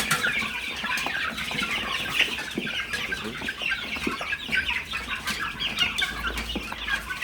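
A flock of chickens clucking and calling over one another, many short calls overlapping without a break.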